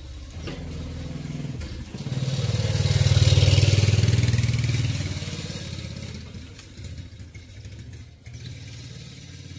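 A motor vehicle passing by: its engine sound swells, is loudest a few seconds in, then fades away.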